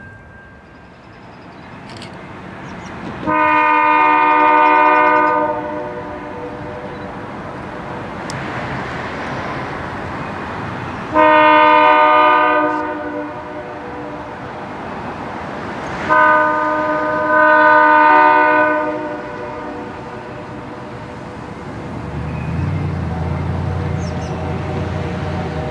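Diesel freight locomotive sounding a multi-chime air horn in the grade-crossing pattern: long, long, short, long. Near the end its engine rumble comes up as it approaches.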